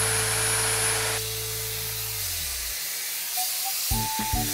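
Dyson Airwrap hair styler with its smoothing brush attachment running, blowing air with a steady rushing hiss that thins about a second in. A plucked melody comes in near the end.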